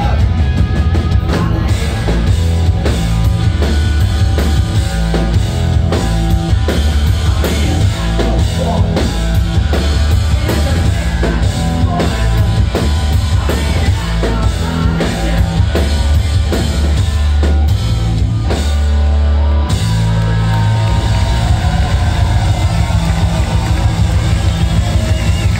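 Rock band playing live at full volume: pounding drum kit, electric guitars and bass, with a singer's vocals on top.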